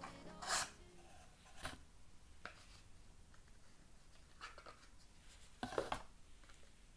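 A cardboard shoebox and the knit shoes inside it being handled: about five short, soft scrapes and rustles of card and fabric, the loudest about six seconds in as the shoes are lifted out.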